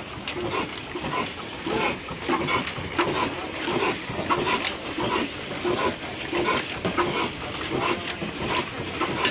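Old 18 HP stationary diesel engine running with a slow, rhythmic exhaust beat, about two to three pulses a second.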